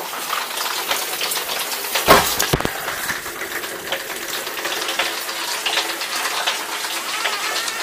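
Steady hiss of heavy rain, dotted with fine clicks and with two knocks a little after two seconds in.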